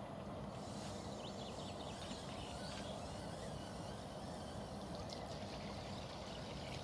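Steady rushing noise of river water at the bank, with a few faint high chirps about a second in.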